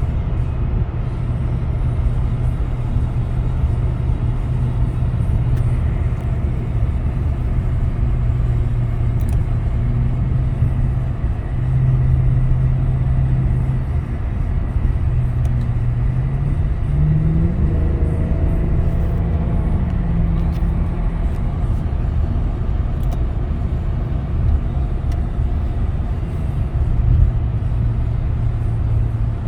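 Mercedes-Benz W211 E63 AMG's 6.2-litre V8 heard from inside the cabin while driving, over a steady rumble of road and tyre noise. The engine note holds steady, climbs in pitch as the revs rise a little past halfway, then drops back and settles.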